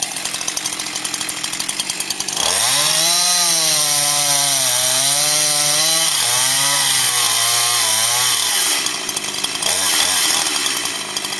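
Two-stroke chainsaw idling with a fast patter, then opened to full throttle about two and a half seconds in and held there for about six seconds, its pitch wavering up and down as the chain cuts into the tree. It drops back to idle, and the sound cuts off suddenly at the very end.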